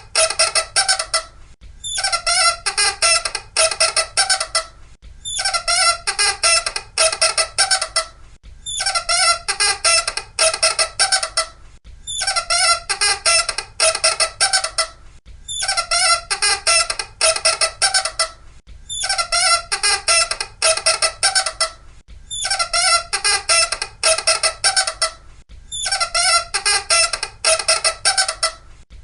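Loud squeaking in bursts of rapid, closely spaced squeaks, each burst lasting about two and a half seconds with a short pause between, the same pattern repeating roughly every three and a half seconds.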